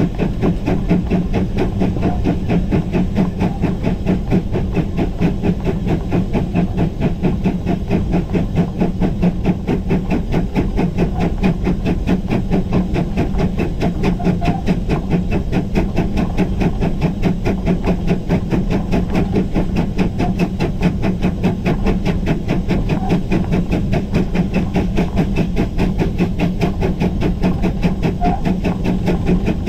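GWR Grange-class 4-6-0 steam locomotive No. 6880 Betton Grange working along the line, heard from the footplate: its two-cylinder exhaust makes a steady, even run of beats over a constant hiss of steam.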